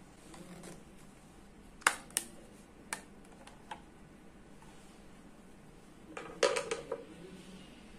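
Hard parts and packaging being handled while a doorbell camera is unboxed. Four separate sharp clicks and taps in the first half are followed by a short clatter of several knocks a bit over six seconds in.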